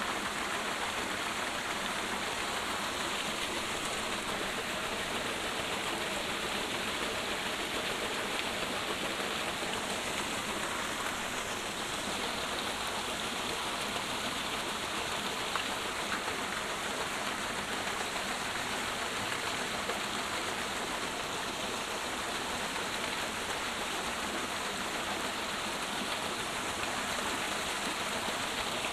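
Steady hiss of water, the even wash of rain or a running stream, with a faint tick about halfway through.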